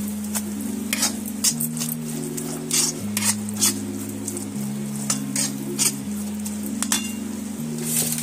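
Perforated stainless-steel spatula stirring and scraping a wet besan and onion-tomato masala in a kadhai, with sharp scrapes and clinks against the pan once or twice a second over a steady sizzle of the paste frying in oil. A soft background tune of low held notes that change about every second and a half plays underneath.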